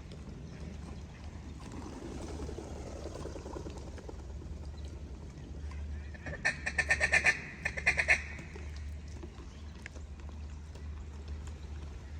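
A rapid run of loud mallard-style quacks, about ten in two quick sequences, over a faint background of distant ducks and geese.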